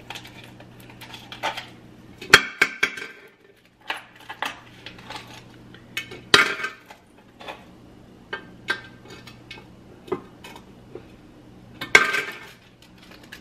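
Ice cubes clinking and clattering as they are handled and dropped into a drinking bottle. The clinks are irregular and scattered, with the sharpest about two seconds in, about six seconds in and near the end, over a faint steady low hum.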